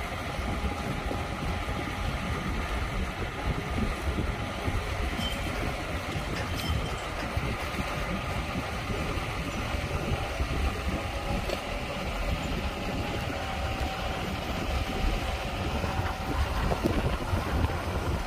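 Diesel engines of heavy machinery, a crawler crane at work, running steadily while the crane lowers a concrete pile.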